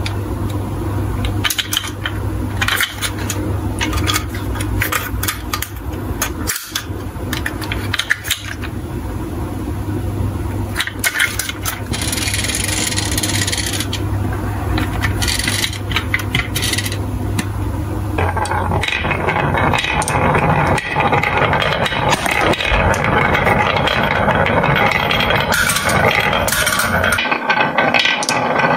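Scattered clicks and knocks as a plastic toy truck and glass marbles are handled. About two-thirds of the way through, glass marbles begin rolling and clattering along a wavy wooden marble run, a denser and steadier rolling rattle.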